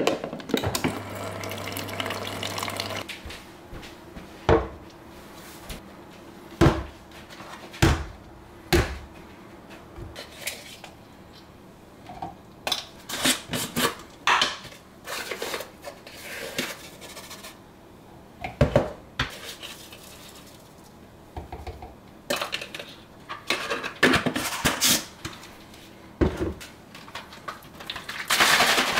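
Hard plastic containers handled on a wooden counter: a powder tub, its lid and the parts of a shaker bottle clicking and knocking as a drink is made up, in scattered sharp taps with quiet gaps between. Near the end a louder continuous noise starts.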